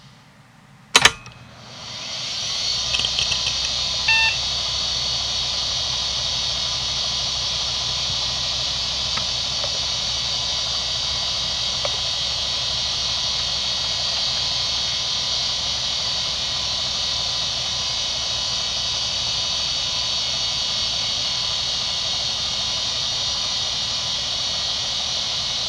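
IBM Travelstar DHAA-2405 2.5-inch hard drive powering up: a loud click about a second in, then the spindle spins up over the next second or so with a few light head ticks, settling into a steady whirring hiss with a low hum as it idles at speed. A short beep comes about four seconds in.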